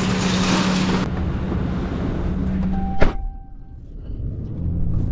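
A vehicle engine running steadily with a low hum, with a sharp click about three seconds in, after which it goes quieter.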